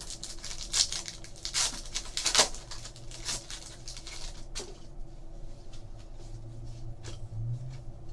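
Trading cards and pack wrappers being handled: a run of quick scrapes, slides and crinkles through the first four or five seconds, then a few scattered ticks over a faint steady hum.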